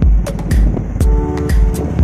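Background music with a steady beat: a deep kick drum about twice a second, sharp hi-hat ticks, and a held chord coming in about halfway through.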